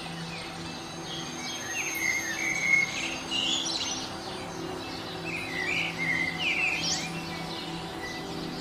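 Songbirds chirping in short, scattered calls and trills, over a steady low drone.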